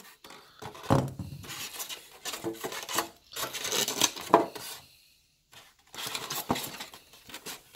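Utility knife blade cutting and scraping through a styrofoam cooler lid in short, irregular strokes, with foam strips broken out by hand. The scraping breaks off briefly about five seconds in.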